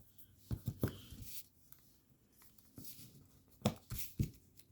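Origami paper crinkling and creasing as small flaps are folded over by hand, in two short bursts of crackles, one about half a second in and another near the end.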